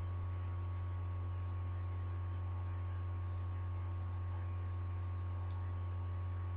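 A steady low hum with a few faint higher tones over a light hiss.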